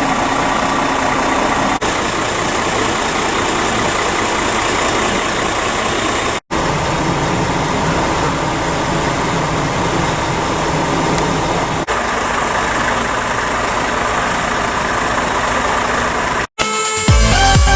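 Scania truck's diesel engine idling steadily, broken twice by sudden cuts. Electronic dance music with a beat starts near the end.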